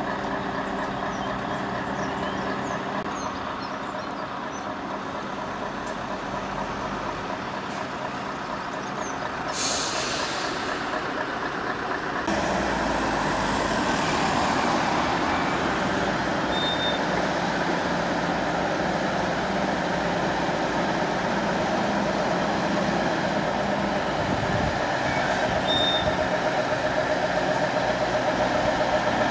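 Heavy tractor unit's diesel engine running at low speed, with a short hiss of air brakes about ten seconds in. From about twelve seconds in the truck's engine runs louder and rougher as it pulls the heavy low-loader along.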